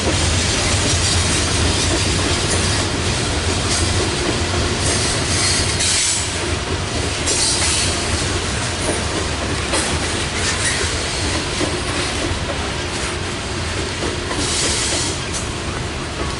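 Loaded Norfolk Southern coal hopper cars rolling steadily past on a curve, a continuous rumble with wheel clatter over the rail joints. High scraping squeal from wheel flanges on the curve flares up a few times.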